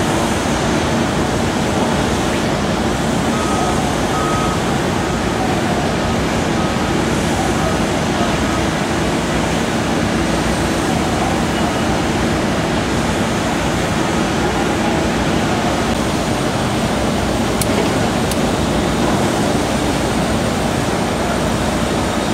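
Caterpillar 320DL excavator's diesel engine running steadily under the continuous din of a construction site. A faint run of short, evenly spaced beeps sounds a few seconds in.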